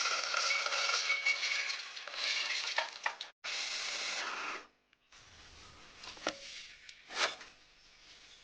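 Hot oil sizzling in a pan, a loud steady hiss that breaks off briefly and then stops abruptly a little over halfway through. After it comes a much quieter stretch with two sharp knocks, like a utensil against the pan.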